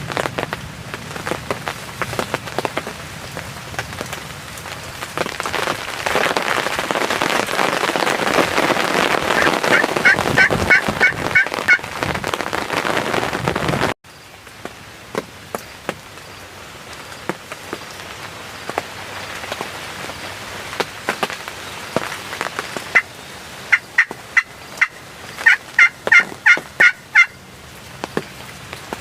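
Wild turkey tom gobbling twice: a quick rattling run of notes about ten seconds in and a longer one near the end, over a steady rushing background.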